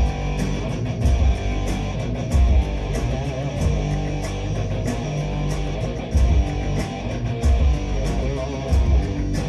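Background music: electric guitar over a steady beat.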